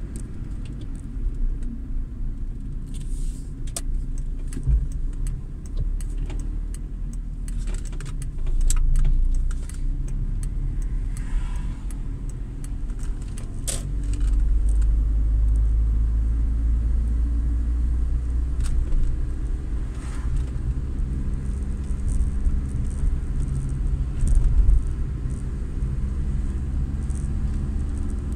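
Car being driven at town speed, heard from inside the cabin: a steady low engine and tyre rumble, with many small rattles and clicks throughout.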